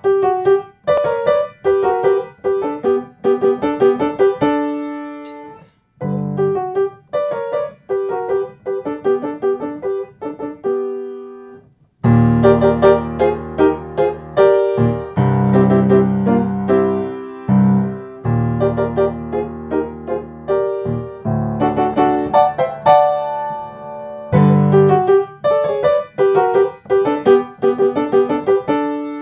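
Piano played with both hands, a short beginner piece: phrases of repeated notes broken by two short pauses, then a fuller passage with low chords held under the tune from about halfway, and the repeated-note phrases returning near the end.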